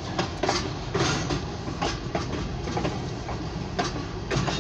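Freight train cars rolling past with irregular clicks of wheels over the rail joints over a steady low rumble, heard from inside a car.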